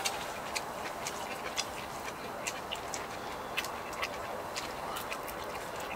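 Eating sounds: irregular sharp little clicks and crunches as crisp pan-fried spring cabbage pancake is handled with chopsticks and chewed, over a faint steady hiss.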